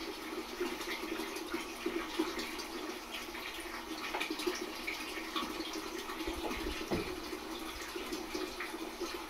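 Aquarium water running and bubbling steadily, with a continuous trickle and fine crackling of bubbles. A soft low bump about seven seconds in.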